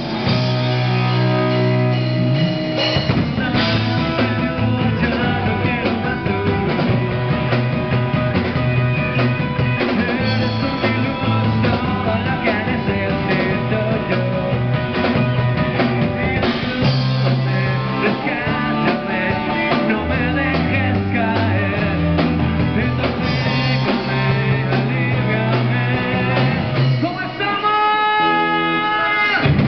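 Rock band playing live: electric guitars, bass guitar and drum kit, with singing.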